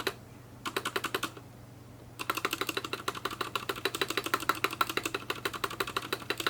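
Typing on an Anne Pro 2 keyboard with freshly lubed Cherry MX Brown switches, its keystrokes clicking in rapid runs. A short burst of keystrokes comes near the start, then a longer, unbroken run from about two seconds in.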